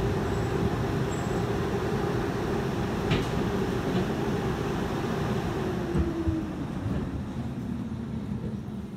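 Streetcar running, heard from inside the car: a steady rumble with a faint whine that falls in pitch about halfway through as it slows for a stop. The noise eases off near the end as the car comes almost to a halt.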